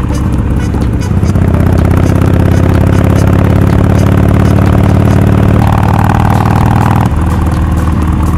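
Harley-Davidson XL1200X Forty-Eight's air-cooled 1200 cc V-twin running through a Rinehart 3-inch slip-on exhaust with quiet baffles while riding. It pulls harder under throttle about a second in, then eases off about seven seconds in.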